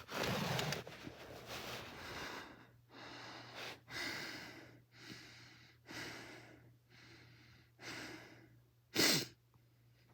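A person breathing close to the microphone, in quick airy breaths about once a second, with one short, louder puff about nine seconds in.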